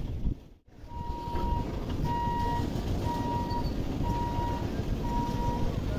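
Level-crossing warning beeper sounding a steady mid-pitched beep about once a second, starting about a second in, while the barrier booms lift. Under it is a low rumble of wind and road traffic, and the sound drops out briefly near the start.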